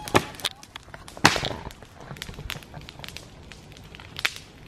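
Campfire of dry grass and sticks crackling, with a scatter of sharp pops; the loudest pop comes about a second in, with others near the start and near the end.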